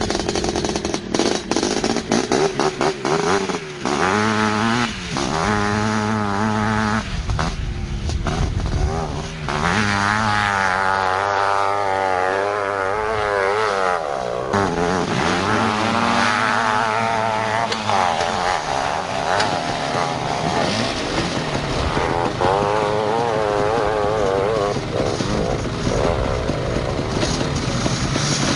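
Two-stroke sport quad engines revving hard, the pitch climbing and dropping again and again as the throttle is worked, as a quad is ridden up a steep sand dune.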